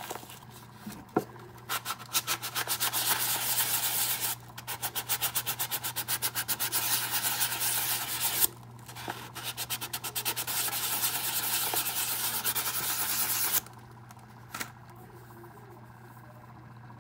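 Foam-backed sandpaper scrubbed quickly back and forth over the bottom of a glitter-coated ceramic mug, sanding the finish smooth. The strokes come in three runs with brief pauses between them, then stop near the end.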